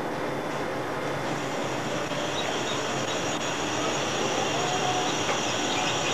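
Steady machine-like noise, with faint high-pitched peeping from newly hatched chicks.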